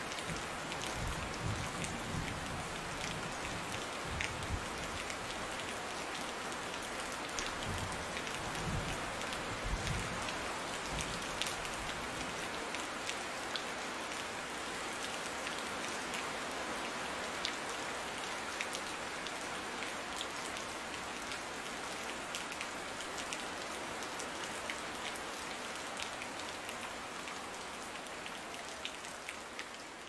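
Steady rain falling, with many separate drops heard as sharp ticks over an even hiss. A low rumble sits under it for about the first twelve seconds, and the rain fades a little near the end.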